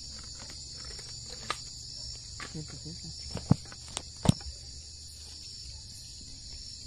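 Night chorus of crickets, a steady high-pitched trill, with rustling and a few sharp knocks from moving through brush and handling the phone, the loudest about three and a half and four and a quarter seconds in.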